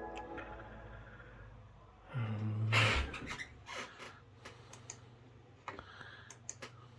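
Computer keyboard typing and mouse clicks, scattered and irregular. A chime fades out at the start, and a brief louder noise with a low hum comes about two and a half seconds in.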